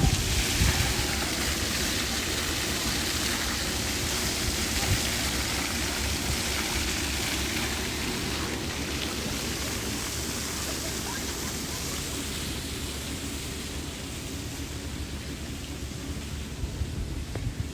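Steady rushing noise, like running water or wind, that slowly fades, with faint voices mixed in.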